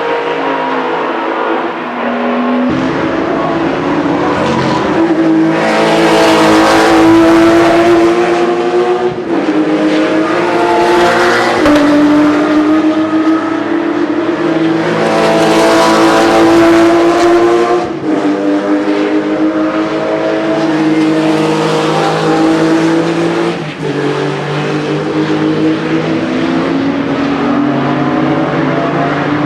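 Porsche sports car engines running hard on a race circuit. The engine note climbs steadily in pitch and then drops sharply at each gear change, several times over, staying loud throughout.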